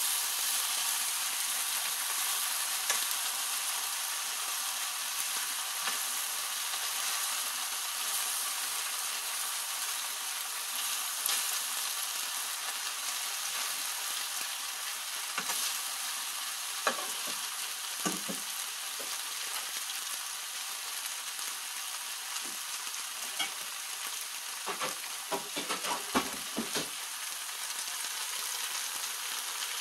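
Bean sprouts and bell peppers sizzling in oil in a stainless steel frying pan while a wooden spatula stirs and turns them over. There is a cluster of light knocks near the end.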